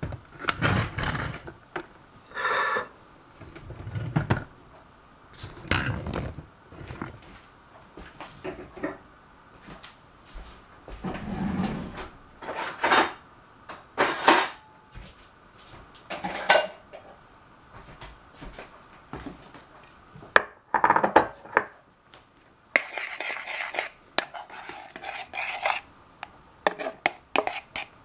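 Kitchen dishes and utensils clattering: scattered clinks and knocks of spoons, a ceramic bowl and a metal pot being handled on a tiled counter.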